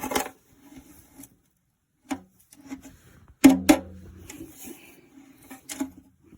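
Knocks, taps and rubbing of objects being handled, with a sharp loud knock about three and a half seconds in.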